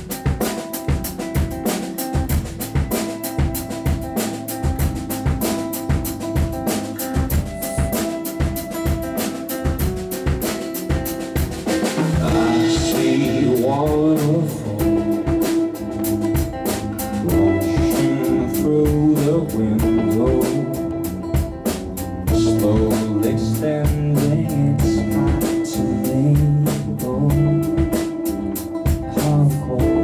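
Live band playing: a steady drum-kit beat with electric bass, acoustic guitar and electric guitar. A male lead vocal comes in about twelve seconds in, and the music gets louder from there.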